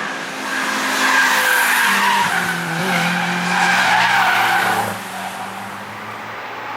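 Car on a race track with its engine running and tyres squealing, loudest for about four seconds before fading near the end.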